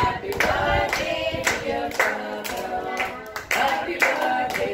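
A small group of people clapping in time, about two claps a second, while singing together, a birthday song sung around a cake.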